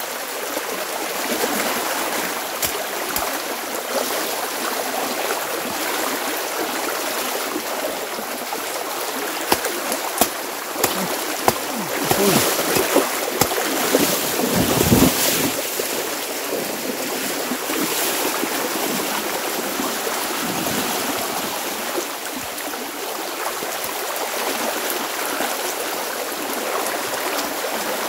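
Swollen, fast-running creek rushing steadily around wading legs. A few knocks come around the middle, then a stretch of louder splashing as someone gropes in the water under the bank.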